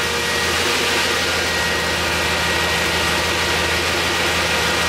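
Chevrolet 502 big-block V8 idling steadily, with the electric radiator fan running alongside as a constant whoosh.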